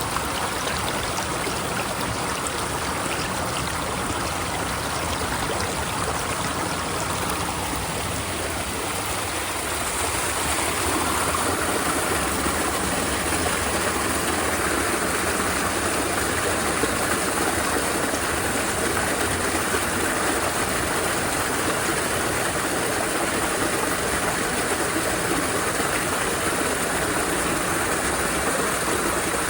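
Running water rushing steadily, a little louder from about ten seconds in.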